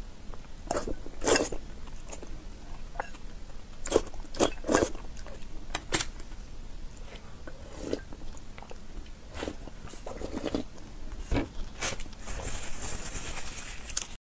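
Close-miked eating sounds: a person chewing boiled eggs and slurping a spicy egg sauce from a bowl, with scattered sharp clicks of chopsticks and the ceramic bowl.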